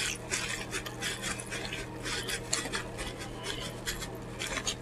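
A person chewing pizza, with many small irregular crunches and wet mouth clicks.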